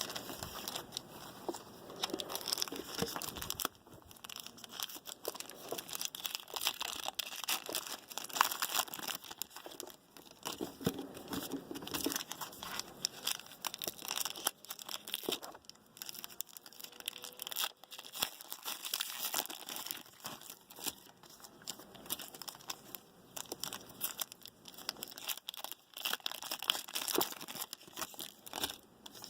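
Foil trading-card pack wrappers crinkling and tearing as packs are ripped open by hand, with an irregular run of crackles throughout.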